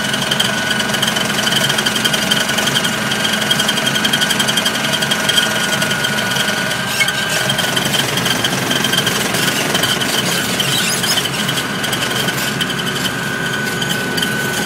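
Vehicle engine running steadily under way, with a rattle and a steady high whine. The whine fades about halfway through and returns near the end.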